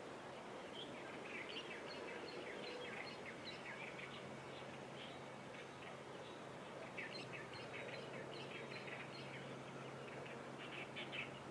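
Small birds chirping: short high chirps in scattered runs, busiest in the first few seconds, again about seven seconds in and just before the end. Under them runs a steady low hum with outdoor background noise.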